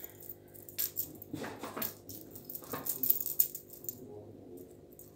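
Metal chain necklace jingling and clinking on a tiled floor as a kitten bats at it: a quick run of sharp clinks that thins out after about four seconds. A low steady hum runs underneath.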